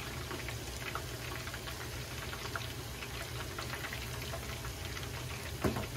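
Chicken karaage deep-frying in a pan of hot oil: steady sizzling with fine crackles, and a light knock near the end.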